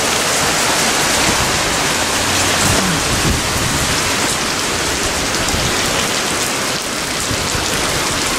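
Very heavy rain pouring down in a steady, even rush.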